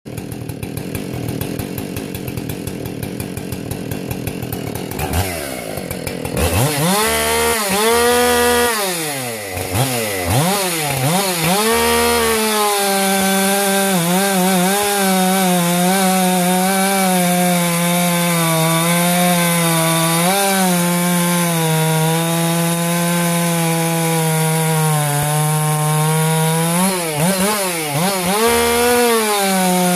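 Ported Husqvarna 576 XP two-stroke chainsaw with a new piston and an unlimited coil (no rev limit). It idles, then revs up and down several times. From about twelve seconds in it holds a steady high-revving note through a long cut into a log, sagging slightly under load near the end before revving free again.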